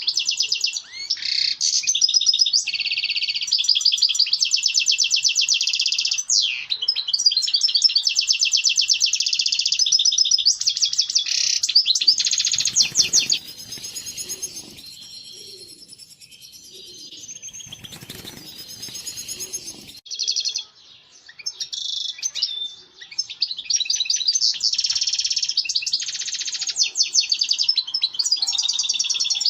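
European goldfinch song: fast, tinkling twitters and trills, with a quieter stretch of about six seconds in the middle. It is the male's mating song, used to stimulate breeding.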